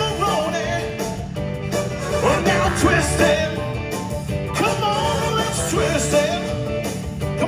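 Live band music with a man singing lead into a microphone, the band playing steadily underneath.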